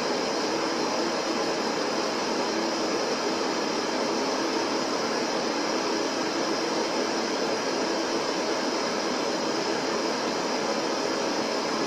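Static noise: a steady, even hiss that does not change, with no tones, clicks or breaks.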